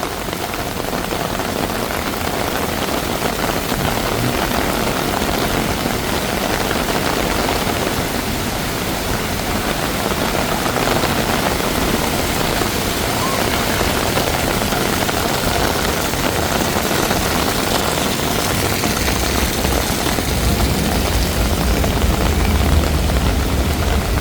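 Heavy downpour with water pouring in, a steady even hiss. A low rumble joins about nineteen seconds in and carries on.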